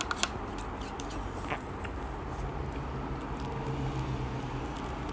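A spoon scraping and clicking against a plastic yogurt cup while yogurt is scooped and eaten, followed from about two seconds in by a low, steady hummed "mmm" of eating.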